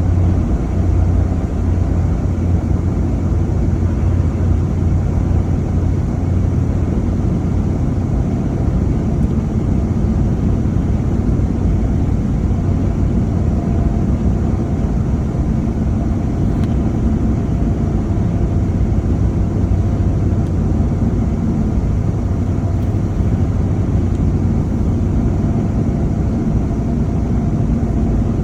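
Car driving at a steady speed: a continuous low engine and road hum that holds even throughout.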